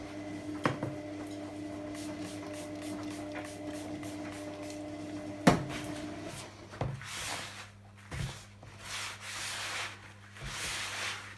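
Hands rubbing and working a dry, powdery bath bomb mixture of bicarbonate of soda and citric acid, giving a gritty swishing, with a sharp knock about five and a half seconds in. A steady low hum runs under the first half and stops about six seconds in.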